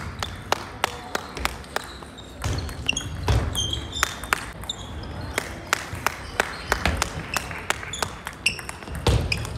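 Table tennis ball clicking off paddles and the table in quick back-and-forth rallies, several sharp knocks a second at uneven spacing. Short squeaks from shoes on the wooden floor and the odd thud of footfalls come in between the hits.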